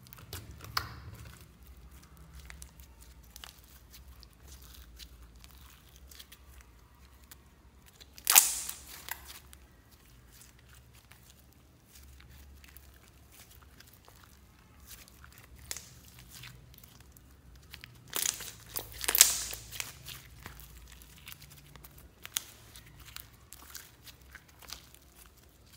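Glitter slime being squeezed and stretched by hand, giving scattered sticky clicks and crackles, with louder bursts of crackling about eight seconds in and again around eighteen to nineteen seconds.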